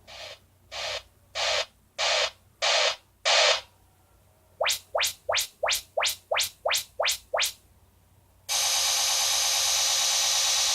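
Yamaha YSP-2700 sound bar playing its surround-setup test signals: six bursts of hiss, each louder than the last, then nine quick rising sweeps, then a steady hiss that starts near the end.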